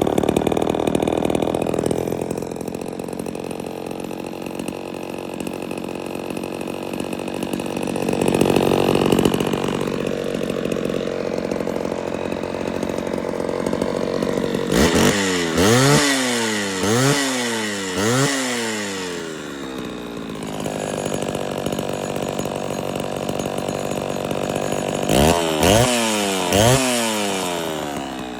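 Pioneer 1200A two-stroke chainsaw running at idle on a freshly rebuilt carburettor, revved up and down several times: once about a third of the way in, three times around the middle, and three quick blips near the end.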